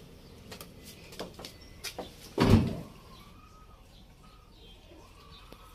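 A single heavy thud of the van's door about two and a half seconds in, amid small scattered clicks.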